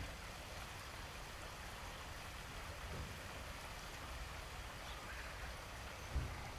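Faint steady outdoor ambience: an even hiss with wind rumbling on the microphone, and a low thump about six seconds in. No peafowl call is heard.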